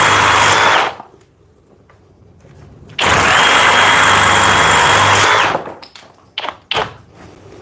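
FLEX 24-volt cordless reciprocating saw cutting wood in straight, non-orbital mode, with a steady high whine. It stops about a second in, then runs again for about two and a half seconds starting around three seconds in. A few short knocks follow near the end.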